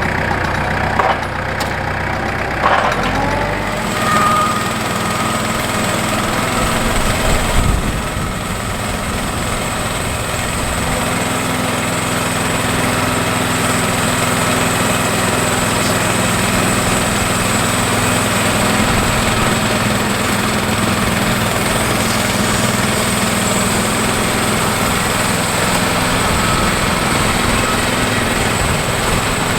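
Portable bandsaw sawmill's small gasoline engine running steadily. Its sound shifts about four seconds in and then holds an even drone.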